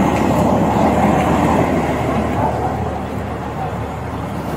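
Steady vehicle and traffic noise, a continuous rumble that eases slightly in the second half.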